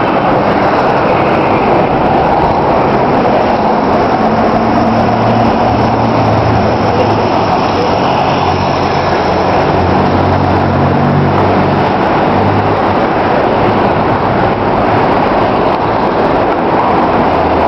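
Loud, steady street traffic noise, with a heavy engine's low hum growing stronger from about four seconds in and fading again after about thirteen seconds, as a large vehicle passes or works close by.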